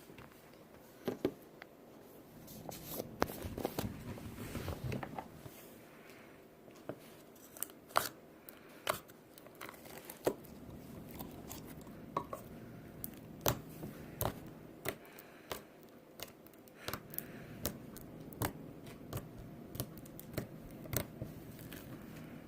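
Slime being squished and poked by hand, giving irregular sharp pops and crackles, busiest a few seconds in.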